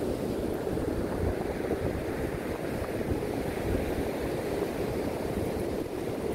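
Steady wash of ocean surf with wind buffeting the microphone in gusty low rumbles.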